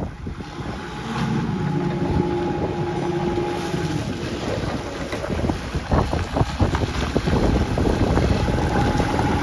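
Diesel engine of a Hangcha CPCD35HB 3.5-tonne forklift running steadily as the forklift drives, with wind buffeting the microphone and a few knocks about six seconds in.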